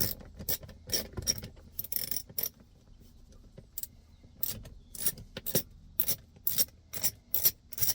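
Socket ratchet with an extension clicking in short, irregular runs as small dash-panel screws are backed out, with a brief lull about three seconds in.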